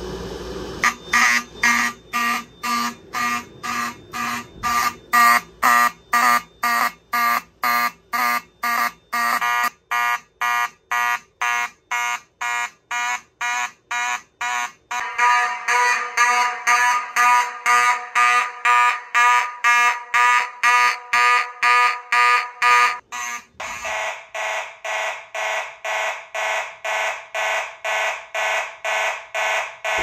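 A fire alarm system's vintage horns sound together in alarm, starting about a second in, once a fogged smoke detector trips. They pulse on and off about twice a second. The tone of the mix changes about halfway through and again later as different horns come nearer.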